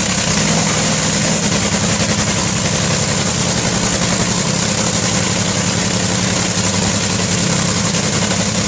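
Pro Stock drag-racing cars' engines running loud and steady, with no let-up for the whole stretch.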